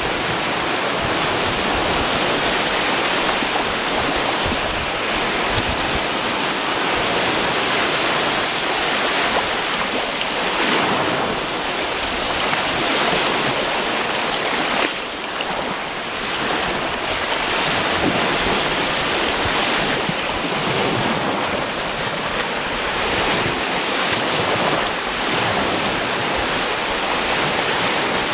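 Mediterranean waves breaking and washing up the shore in a steady surf, the level easing briefly about halfway through.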